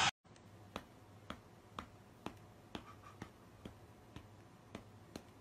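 Faint, sharp clicks, about two a second.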